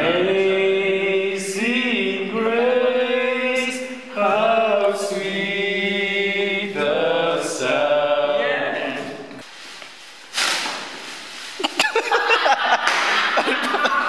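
Voices singing long held notes a cappella, like a choir, changing chords every second or two. About ten seconds in the singing stops with a sudden burst of noise, followed by loud laughter near the end.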